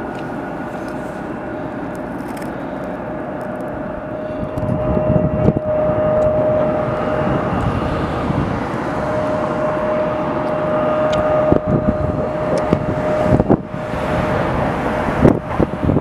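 Aircraft engines running with a steady whine over a rushing noise that grows louder about four and a half seconds in. Gusts of wind buffet the microphone in the second half.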